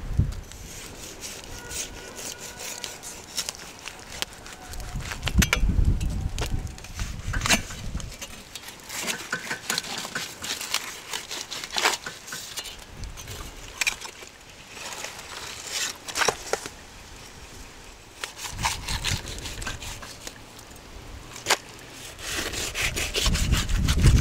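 Long knife carving cooked beef off a spit-roasted whole bull: irregular slicing and scraping strokes with sharp clicks of the blade. A few low rumbles come in about five seconds in and again near the end.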